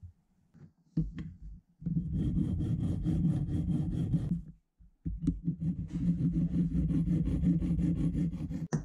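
Flat metal file worked back and forth across a small aluminium part clamped in a bench vise, in two long runs of filing strokes with a short pause between. A short knock comes about a second in.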